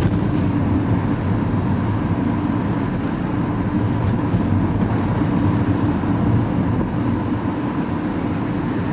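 Steady engine and road noise heard from inside a moving vehicle's cabin, even throughout with a low rumble.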